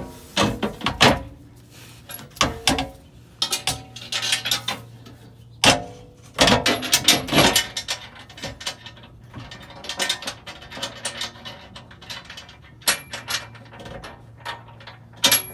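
Zinc-plated steel transfer case skid plate clanking, rattling and scraping against the Jeep's frame and hardware as it is held up and lined up for its bolts: irregular metal knocks and scrapes, busiest about halfway through. A faint, steady low hum runs underneath.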